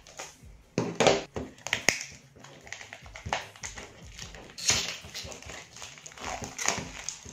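Plastic shrink-wrap being peeled off a cardboard shaver box: irregular crinkling and crackling, loudest about a second in.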